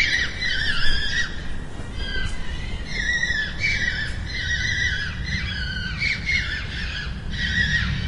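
Fox screeching in a run of high, wavering calls. A longer call comes first, then a quick string of short ones from about three seconds in, over a low background rumble.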